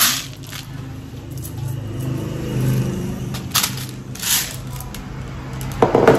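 A few sharp clicks from BBs being loaded into a gas blowback airsoft pistol magazine, over a low hum that swells in the middle.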